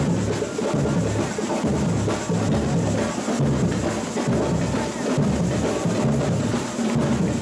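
Samba bateria playing live: deep surdo bass drums beating a pulse about once a second under a dense, steady layer of snare and small hand percussion.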